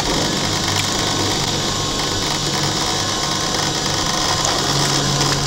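Battery-powered DC motor driving a YK CR 100 centrifugal water pump, running at a steady whir with a low hum.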